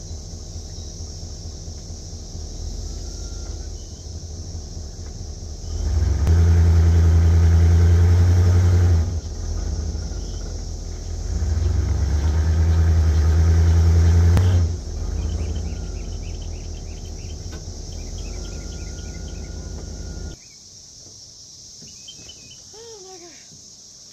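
1993 GMC school bus engine running at idle, revved up twice for about three seconds each, then switched off abruptly about twenty seconds in, leaving insects and birds chirping.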